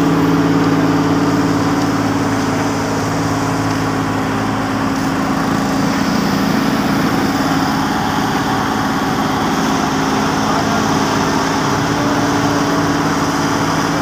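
Diesel engine of an ABG asphalt paver running steadily while it lays asphalt, a constant engine hum, with the dump truck feeding it also running.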